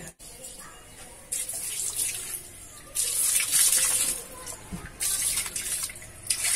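Water from a hose pipe splashing over a car engine and engine bay, in three spells of a second or so each, the first starting just over a second in.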